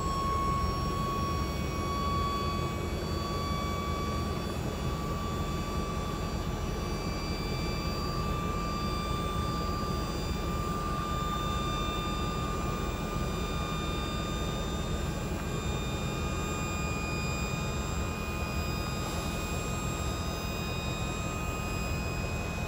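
Dump truck's hydraulic hoist pump whining steadily as the dump bed lifts, its pitch creeping slowly upward, over a steady low rumble.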